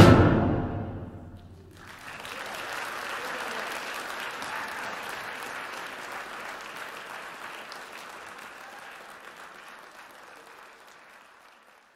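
A wind band's final chord dies away in the hall's reverberation over about a second and a half. Then applause starts and gradually fades away toward the end.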